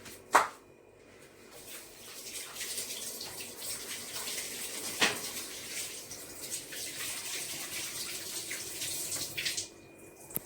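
Water running steadily from a kitchen tap for about eight seconds, then shut off suddenly near the end, with a sharp click just before it starts and a brief knock partway through.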